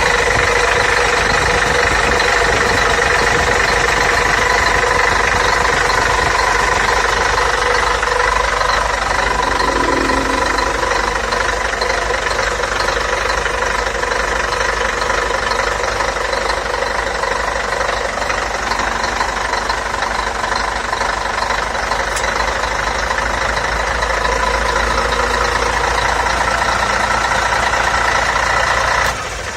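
Scania K113TL bus's six-cylinder diesel engine running steadily at a constant speed, with a loud, even drone. The sound drops away suddenly near the end.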